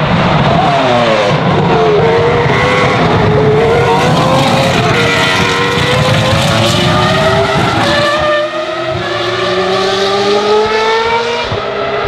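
Jaguar R5 Formula One car's 3-litre Cosworth CR6 V10 at high revs, accelerating through the gears. The pitch drops briefly about a second in, climbs steadily, breaks at an upshift about eight seconds in, and climbs again.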